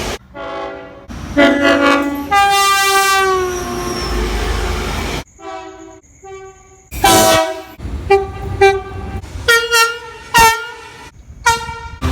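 Locomotive multi-chime air horns sounding in a string of separate blasts, one after another with abrupt breaks between them. One long chord in the first half falls in pitch. A run of short, sharp blasts follows in the second half.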